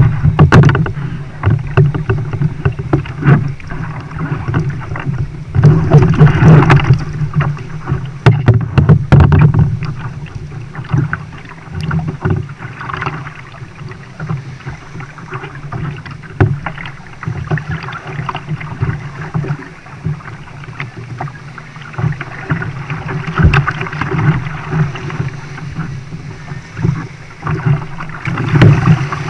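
Water splashing and slapping against a fishing kayak's hull in light swell, with irregular knocks and bumps on the boat over a steady low rumble.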